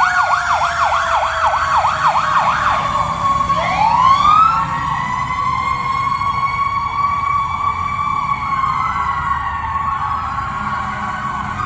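Several fire truck sirens sounding together. An electronic siren yelps rapidly for about three seconds, then sweeps up into a long held wail. Under it runs a lower siren tone that falls slowly, like a mechanical siren winding down.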